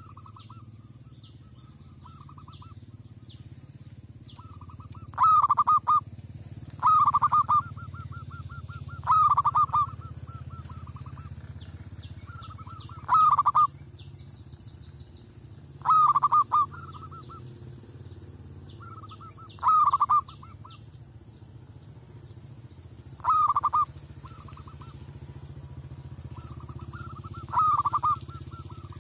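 Zebra dove cooing: eight loud bursts of rapid staccato coos, one every two to four seconds, with softer runs of quick coos in between.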